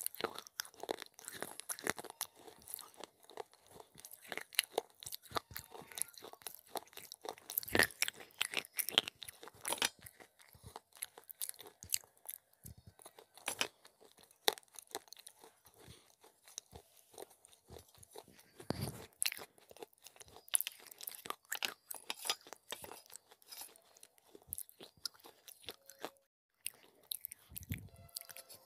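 Crunching and chewing of broken fired-clay pot pieces coated in a white cheese dip. Dense, crackly crunches for the first ten seconds or so, then sparser bites and chews.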